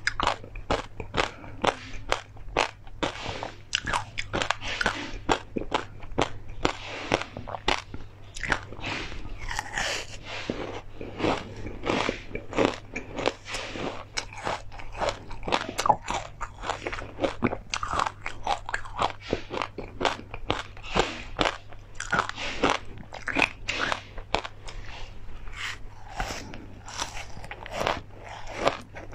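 Close-miked crunching and chewing of a mouthful of crispy fried chili pieces and seeds (fried perilla, flax and pumpkin seeds), a dense, unbroken run of crisp crackles.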